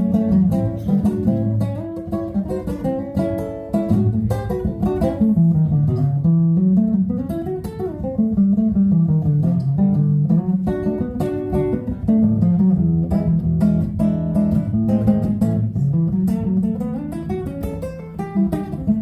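Solo acoustic guitar playing the instrumental intro to a Western/country song: picked and strummed chords, with bass-note runs that climb and fall between them.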